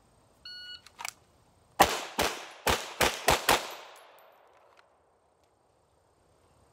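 A short electronic beep like a shot timer's start signal, then a pistol fires six shots in under two seconds, unevenly spaced, with a tail of echo that fades over about a second after the last shot.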